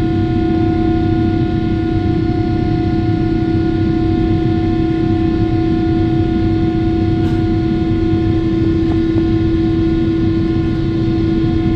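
A Boeing 777-300ER's GE90-115B turbofan engine at climb thrust just after takeoff, heard inside the cabin: a steady fan tone over a dense, even rush of jet noise.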